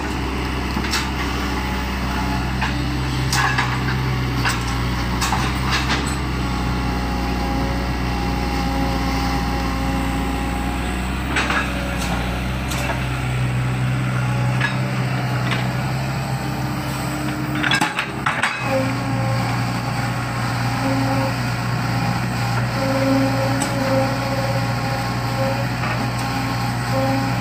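Excavator's diesel engine running steadily, with scattered short metallic knocks and clanks. The sound breaks off briefly about two-thirds of the way through.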